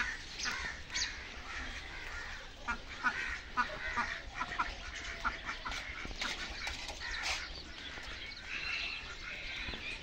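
Many captive farmyard birds calling at once, a busy stream of short, overlapping calls.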